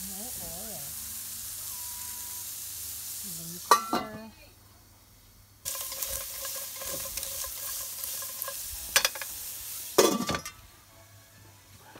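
Onion and garlic sizzling in a dry stainless-steel Saladmaster pan, cooked without oil, with a sharp metal clank about four seconds in. Near the end the stainless lid clanks down onto the pan, and the sizzle then goes quieter.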